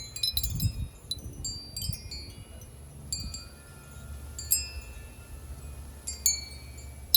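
Metal tube wind chime struck by the breeze: a quick flurry of clangy strikes in the first two seconds, then single strikes now and then. The owner thinks something is nesting inside the tubes. Low wind rumble underneath.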